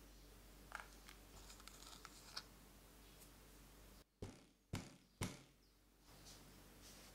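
Light scattered patter of almond flakes dropped onto cake batter, then a metal cake pan of batter knocked down on a towel-covered counter three times, three dull thuds about half a second apart.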